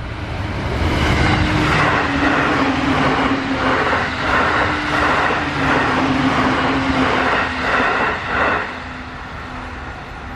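JR East E531-series electric commuter train passing at speed: a loud rush of wheels on rail with a rhythmic clatter as the bogies cross the rail joints, lasting about eight seconds before dying away. A level-crossing warning signal keeps sounding in short repeating tones.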